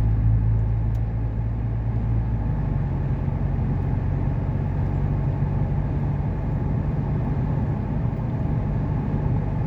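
Steady vehicle engine and road noise heard from inside a moving car, the engine's hum stepping up in pitch about two and a half seconds in as it picks up speed.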